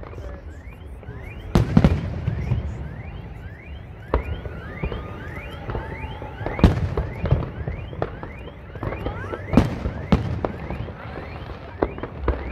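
A fireworks display: aerial shells go off with several loud bangs, the biggest about a second and a half in and again near the middle and two-thirds through. Between them run a continual rumble and crackle and many short rising whistles.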